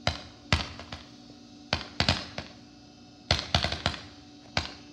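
Consumer aerial fireworks going off: a string of sharp bangs at uneven intervals, with a quick cluster of four a little past three seconds in.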